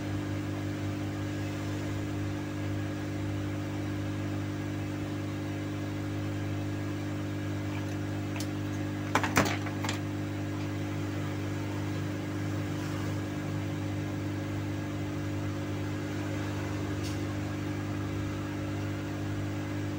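Steady electrical hum from workbench equipment during soldering work on a TV circuit board, with a short cluster of sharp clicks about nine seconds in.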